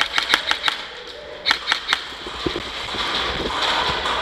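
Airsoft guns firing: a quick string of sharp cracks at the start and another short burst about a second and a half in, followed by a steady rushing noise.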